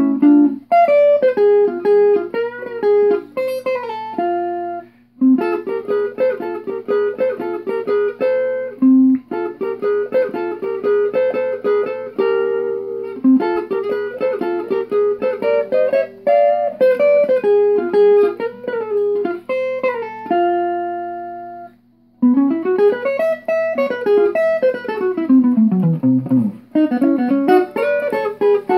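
Solo archtop guitar playing a 1930s swing guitar piece: quick picked melody lines over chords, with two brief breaks. After the second break, about two-thirds of the way through, a fast run climbs and then falls to low bass notes.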